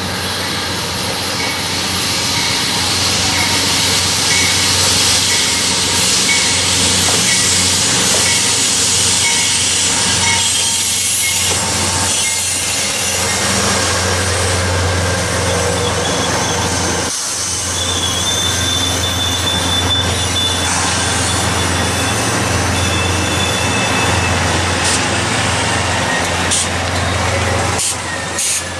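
Amtrak bi-level passenger train rolling slowly past on steel wheels, a steady low rumble throughout. From about halfway through, thin high-pitched wheel squeal rides over the rumble.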